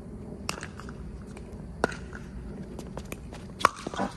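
Pickleball paddles striking the plastic ball in a doubles rally: a handful of sharp, hollow pocks a second or so apart, the loudest and nearest about three and a half seconds in.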